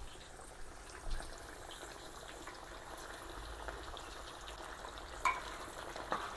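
Hot oil sizzling steadily in a disco (plow-disc fryer) as cut potatoes deep-fry, with a few light knocks about a second in and near the end.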